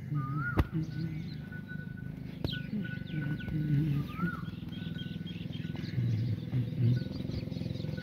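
Farmyard ambience: small birds chirping and whistling over a steady low hum, with a few short low animal calls.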